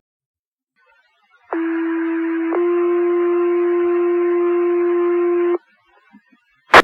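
Two-tone sequential fire pager alert over a dispatch radio channel: a steady tone for about a second, then a slightly higher tone held for about three seconds, setting off the firefighters' pagers. A sharp radio click near the end.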